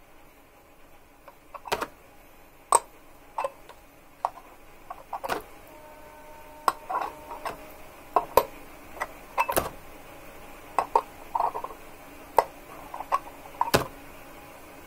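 Irregular sharp clicks and taps, about twenty of them, as wire ends and small metal parts are handled against the tops of the iron cores of a homemade two-coil electromagnet.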